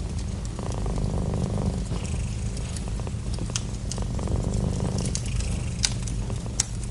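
Domestic cat purring steadily and close, the purr swelling and fading with each breath about every two seconds. Scattered sharp crackles from a wood fire over it, the clearest near the end.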